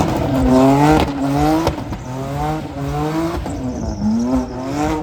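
Modified older BMW engine revving hard in repeated surges, its pitch climbing and dropping back about five times, as when the car is being drifted.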